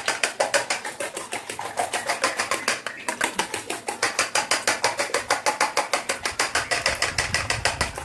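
Five eggs being beaten by hand with a metal utensil in a stainless steel bowl: a fast, even clinking of metal on metal, about six or seven strokes a second.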